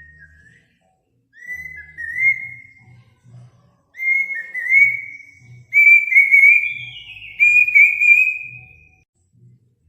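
A bird singing a series of clear whistled phrases around one pitch. The phrases grow longer and more run-together, and one note slides down from higher partway through.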